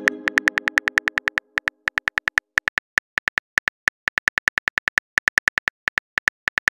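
Phone keyboard typing clicks: a quick, even run of key taps, about six a second. Over the first second the ringing tail of a chiming message tone fades out.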